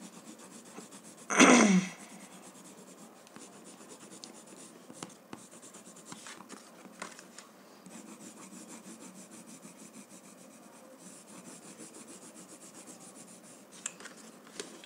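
Watercolour pencil scratching back and forth on a textured paper flashcard as colour is shaded in, faint and steady with small irregular ticks. About one and a half seconds in there is a short vocal sound, falling in pitch, which is the loudest thing.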